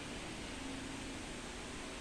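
Steady background hiss with a faint low hum, no distinct events: room tone.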